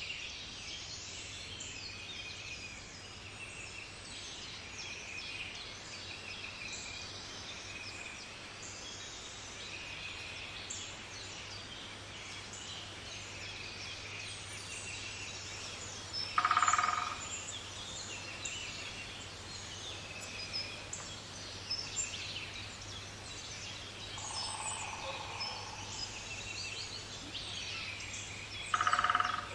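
Woodland birdsong: several birds calling at once, with short high notes repeating about once a second, and two louder, lower calls, one past the middle and one at the end. A steady low hum runs underneath.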